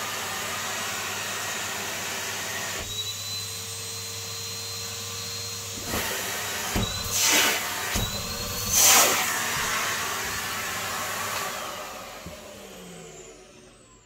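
Numatic James cylinder vacuum cleaner running steadily, its note changing about three seconds in, with two brief loud rushes of air about seven and nine seconds in. Near the end the motor is switched off and winds down with a falling whine.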